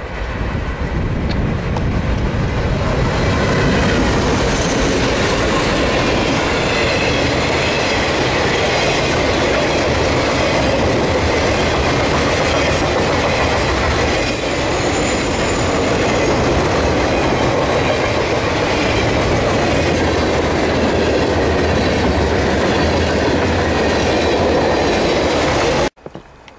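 Freight train passing close by, its boxcars rolling past with a steady clatter of wheels on the rails. The sound builds over the first few seconds, holds steady, and cuts off suddenly near the end.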